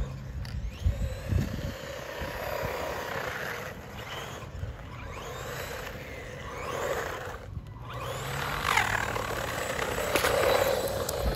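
1:16-scale electric RC truck driving: its motor whines and glides up and down in pitch with the throttle over a rough running noise. A few low thumps come about a second in.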